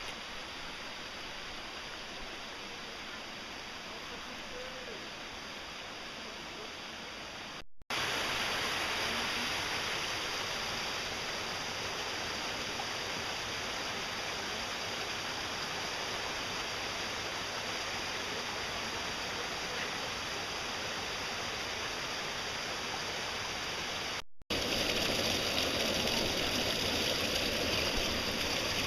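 Steady rushing water of a mountain stream, a constant hiss-like noise that becomes louder at two cuts, about eight seconds in and again near the end.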